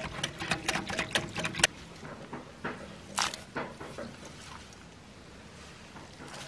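Wire whisk clicking quickly against a glass mixing bowl as a thin flour batter is beaten, stopping after about a second and a half. A few soft, scattered taps and scrapes follow.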